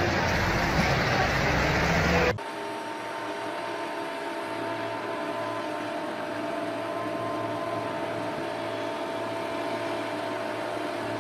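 A Caterpillar D5 crawler dozer's diesel engine running loud as it pushes a loaded log truck, cut off abruptly about two seconds in. It is followed by a quieter, steady heavy-machinery engine hum with a few held tones.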